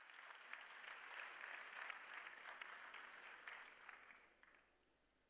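Faint audience applause, a dense patter of claps that fades out about four and a half seconds in.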